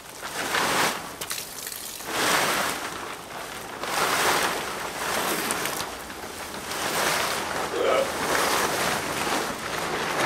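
Wind gusting outdoors, a loud rushing hiss that rises and falls in surges every couple of seconds.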